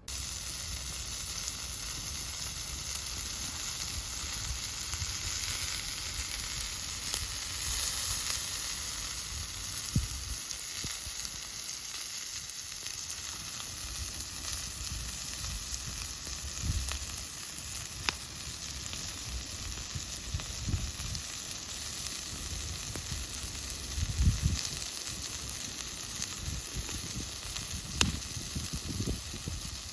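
Food sizzling steadily on a thick iron griddle over a wood campfire, with a few sharp crackles.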